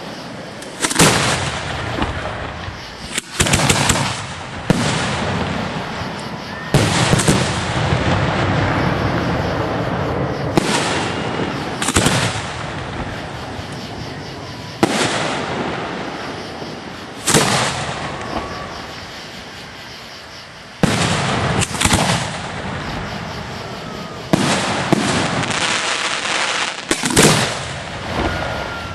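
Display fireworks going off in quick, irregular succession: about fifteen sharp reports over the stretch, each trailing off in a long echoing rumble, sometimes two or three close together.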